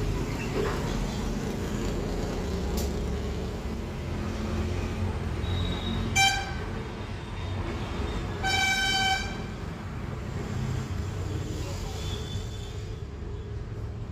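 A vehicle horn beeps twice, a short beep and then a longer one a couple of seconds later, both on one steady pitch, over a steady low rumble.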